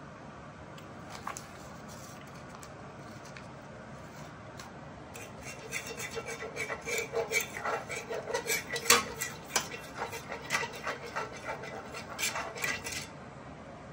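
Metal utensil stirring and scraping in a sauté pan while butter is worked into a reducing white wine pan sauce: a quick, irregular run of clinks and scrapes starts about five seconds in and stops about a second before the end, over a faint steady hiss.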